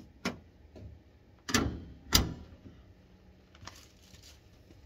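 A car's hood being shut: a light click, then two loud slams about two-thirds of a second apart as the hood comes down and latches.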